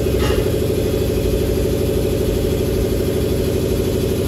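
A motor running steadily with a strong hum and a fast even pulse, with a brief higher-pitched scrape about a quarter of a second in.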